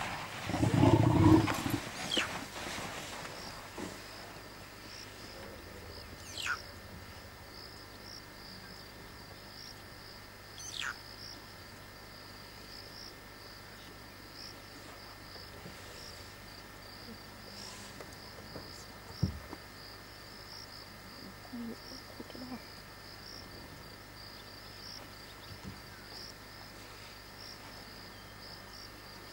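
African bush elephant bulls sparring: a loud, low growl lasts about a second and a half right at the start. Insects chirr steadily throughout, with a few faint clicks later on.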